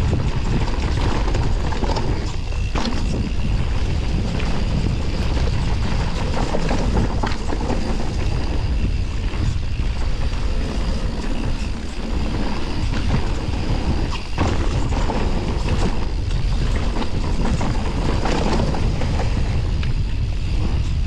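Wind rushing over the microphone as a steady, loud rumble, broken by frequent short knocks and rattles.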